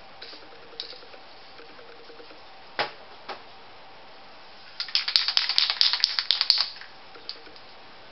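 Aerosol spray paint can being handled: a single knock about three seconds in, then nearly two seconds of rapid rattling clicks as the can is shaken and its mixing ball rattles inside.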